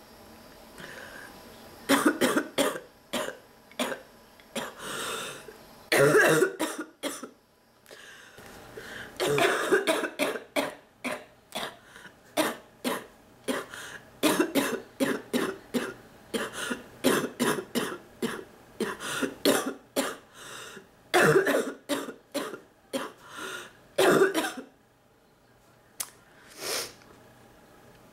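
A sick woman coughing in repeated fits of short, barking coughs, with one long run of rapid coughs near the middle and a few separate fits before and after.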